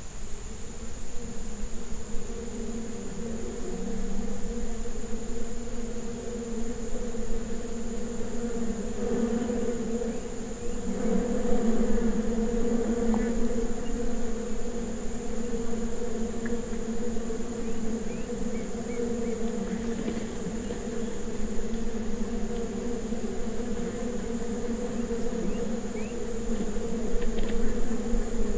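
Steady insect buzzing: a low drone with a thin high whine above it that holds without a break.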